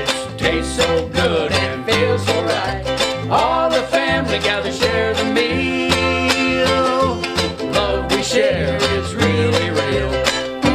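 Instrumental break in an Americana song: an upright double bass plucked in steady low notes under a small string instrument strummed and picked in quick, even strokes.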